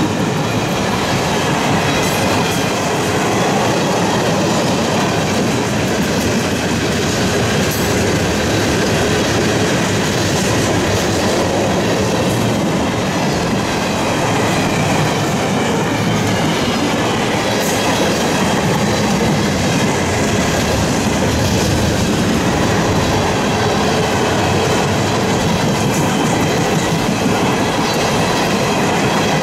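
Freight train rolling past at close range: a steady, loud noise of steel wheels on rail, with a faint metallic ringing and occasional clicks from wheels passing over rail joints.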